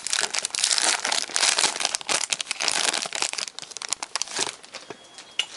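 Trading card pack wrapper crinkling and crackling as it is handled and torn open. The crinkling is dense for about three and a half seconds, then thins to a few scattered rustles and clicks.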